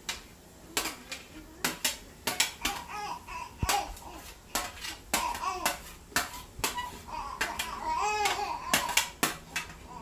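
A metal spoon tapping and scraping chopped vegetables off a serving tray into a stainless steel pot: a quick, uneven run of sharp clicks and knocks. A small child's voice babbles and cries out in the background through the middle.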